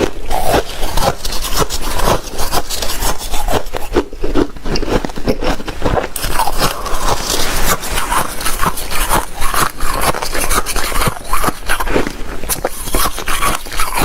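Shaved ice crunching and scraping in a dense, irregular run of crackles, as it is scooped and bitten.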